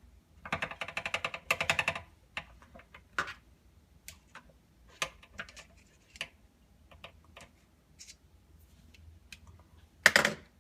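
Needle-nose pliers clicking against the faucet body as the rubber seat and spring are worked out of a Delta faucet. A quick rattling run of small clicks lasts about a second and a half near the start, then scattered light taps follow, with one sharper click near the end.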